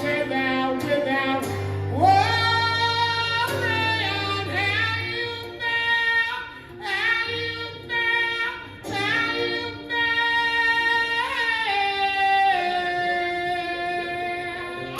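Live folk song: a sung melody with long, gliding held notes over a low instrumental accompaniment.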